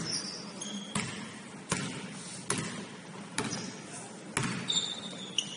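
Basketball dribbled on a gym floor: five sharp bounces a little under a second apart, then a few short high squeaks near the end, the kind basketball shoes make on a hardwood court.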